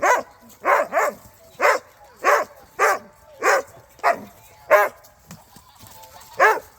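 A dog barking repeatedly, one short bark roughly every half second or so, with a pause of a second and a half before one last bark near the end.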